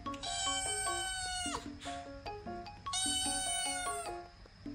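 Tabby-and-white kitten meowing twice, two long high calls, the first dropping in pitch at its end: the kitten calling to its owner. Light background music with short mallet-like notes plays underneath.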